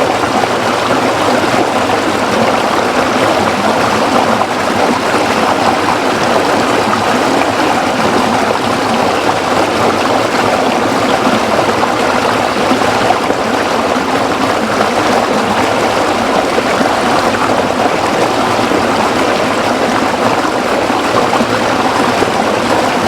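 Stream water flowing over rocks, a steady rushing and babbling.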